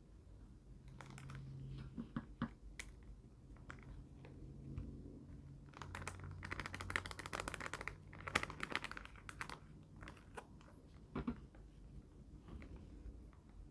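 Light clicks and plastic crinkling from handling small plastic candy-kit packets and trays, with a denser run of rapid clicks and rustling in the middle.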